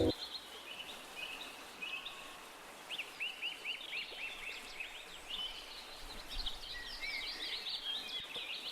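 Small birds chirping, with quick runs of short chirps that grow busier from about three seconds in, over faint outdoor hiss.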